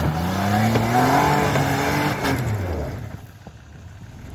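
Jeep Cherokee's engine revving with rising pitch under load as it claws up a snowy, rutted slope, over a haze of tyre and snow noise. About two and a half seconds in the driver comes off the throttle and the engine falls back to a much quieter run.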